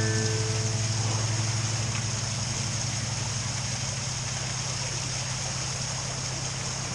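Canal lock water gushing through and over the wooden top gates into the lock chamber, a steady rushing hiss. Underneath, the narrowboat's engine idles with a steady low hum.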